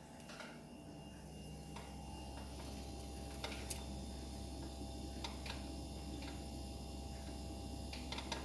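Steady low electrical hum with a few faint, irregularly spaced clicks.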